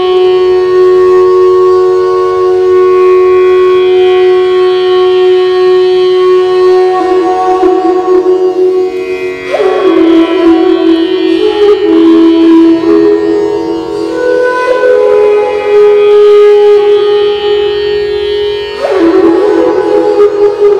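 Bansuri, the Indian bamboo flute, playing an improvisation of long held low notes that step from pitch to pitch, inside an empty stone water tank. Fresh breathy phrases begin about halfway through and again near the end.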